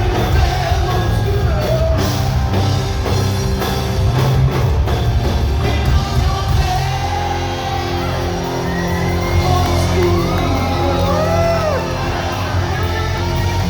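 Live rock band playing loudly, with singing and shouting over it. In the second half the drum hits thin out and high notes come in that glide up and down in pitch.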